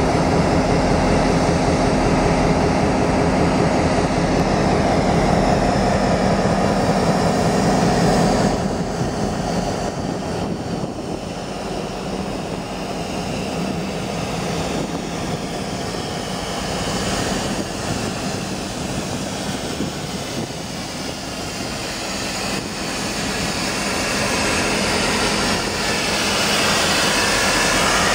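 BNSF diesel-electric locomotives, a GP38-2 among them, idling with a steady low engine drone. It is loudest at first, drops about eight seconds in, and swells again near the end.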